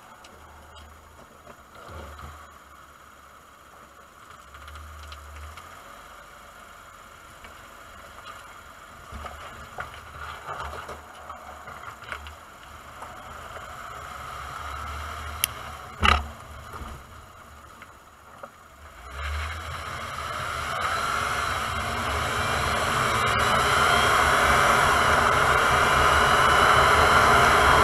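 Road and tyre noise heard from inside the wheel well of a 2008 Lexus IS350 on Tein adjustable coilovers, with scattered small knocks and rattles from the suspension over the road surface. A sharp knock comes about sixteen seconds in, then the tyre and wind noise grows steadily louder as the car gathers speed.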